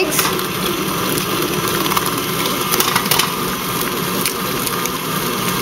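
KitchenAid stand mixer motor running steadily, beating the butter, sugar and cream cheese cookie dough in its glass bowl.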